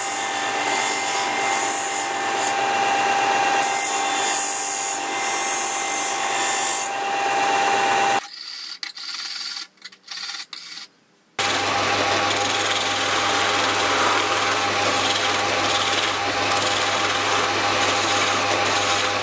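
A file-steel chisel blade being ground on the spinning abrasive disc of a belt/disc sander, a steady grinding hiss for about eight seconds. Then a few seconds of quieter, uneven strokes as the blade is honed by hand on a sharpening stone. From about eleven seconds in, a metal lathe runs steadily with a low hum while the new skew chisel cuts the spinning wood.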